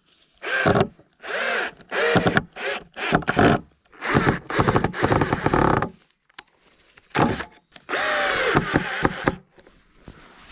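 Green cordless drill driver running in repeated short bursts against wooden planks, its motor pitch rising and falling as it loads up in the wood, while the boards are being fastened to the frame. The longest run starts about four seconds in and lasts about two seconds.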